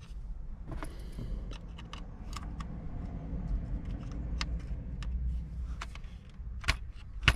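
Scattered sharp plastic clicks and rattles as the removed HVAC control panel of a 4th-gen Toyota 4Runner and its twist-in bulb sockets are handled, about seven in all, the two loudest near the end, over a steady low rumble.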